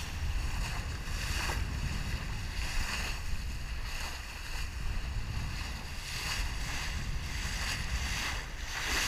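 Wind buffeting the microphone over the steady rush of water along the hull of a sailboat under way.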